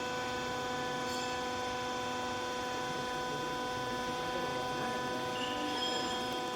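Hydraulic baling press running, its electric motor and pump giving a steady hum of several constant tones.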